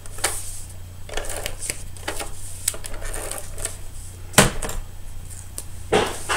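Handheld adhesive tape dispenser clicking and rasping as it is pressed and drawn along a cardstock panel, with paper rustling. A sharp knock on the table a little over four seconds in is the loudest sound.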